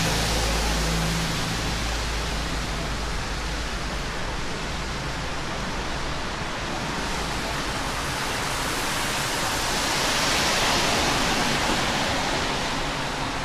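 Steady rushing of falling water, swelling a little about ten seconds in, with a low hum that fades out about a second and a half in.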